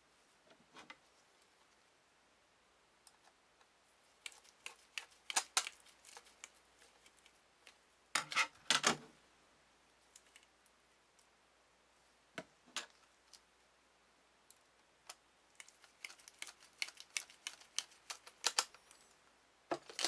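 Scattered clicks and clatters of an SSD and its 3.5-to-2.5-inch mounting bracket being handled and screwed together, in irregular clusters with short quiet gaps.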